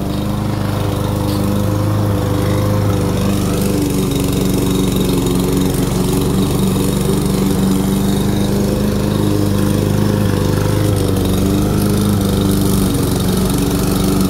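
Briggs & Stratton engine on a Yard Machine push mower running at a steady speed while cutting grass. It keeps running without stalling now that its clogged carburetor has been cleaned and fresh gas put in.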